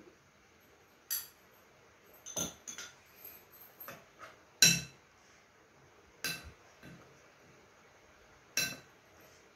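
Metal spoon clinking against a plate while stirring a wet mixture: about seven separate clinks with a short ring, spread a second or two apart, the loudest about halfway through.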